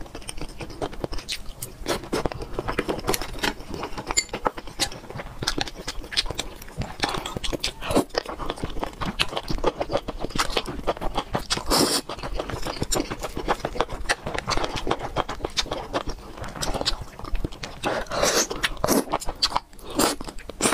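Wet mouth sounds of eating enoki mushrooms in chili oil, close to a clip-on microphone: chewing and slurping of the mushroom strands, with many quick clicks and smacks.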